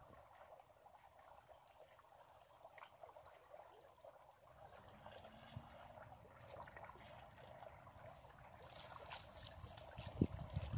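Faint trickling and lapping of river water at a small boat while a fish is played on a spinning rod. Near the end come louder splashes and a couple of low knocks.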